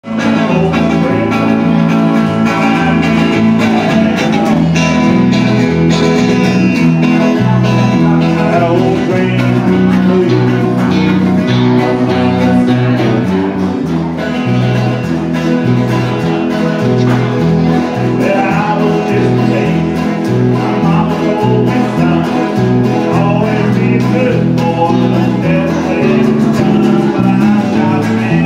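Several acoustic guitars playing a country tune together over a steady, alternating bass line.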